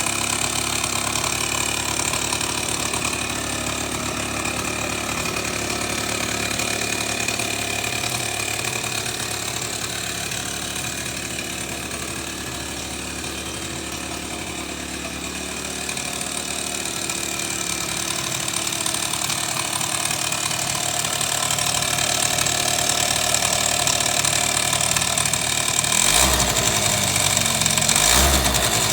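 Suzuki Sepia ZZ scooter's 50cc two-stroke engine running steadily at idle, making what the owner calls an abnormal engine noise. A few short surges come near the end.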